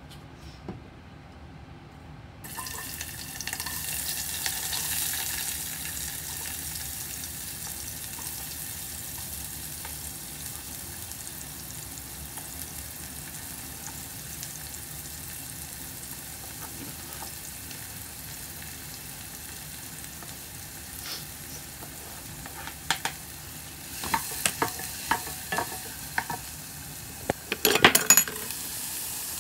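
Diced red onion and tomato going into hot oil in a pan and sizzling, the sizzle starting suddenly a couple of seconds in and running on steadily. In the last several seconds a run of sharp knocks and clatters, the wooden spatula and utensils knocking against the pan, stands out above the sizzle.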